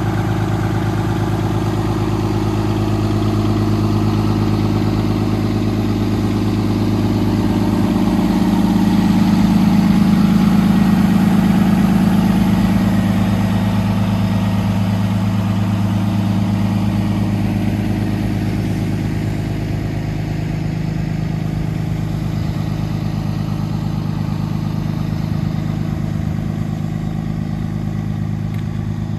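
Freightliner M2 truck's Cummins ISB diesel engine idling steadily, growing louder for a few seconds in the middle and then easing off again.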